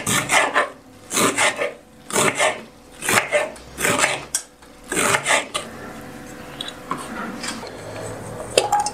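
Kitchen knife slicing through an onion onto a wooden cutting board, about two crisp cuts a second; the cutting stops about five and a half seconds in, and a single knock follows near the end.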